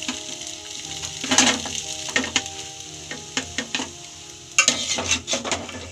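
Metal spoon scraping and clinking against a metal cooking pot as cooked Maggi noodles with potato are scooped out onto a plate. It comes as short, sharp scrapes in several bunches.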